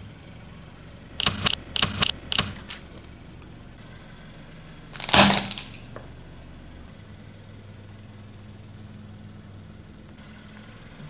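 Car engine idling while its tyre crushes objects: a quick run of four or five sharp cracks about a second in, then one loud crack about five seconds in.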